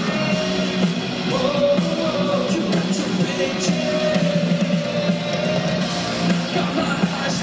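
Live rock band playing loudly with distorted electric guitars, bass and drums, with a held, wavering melody line over them.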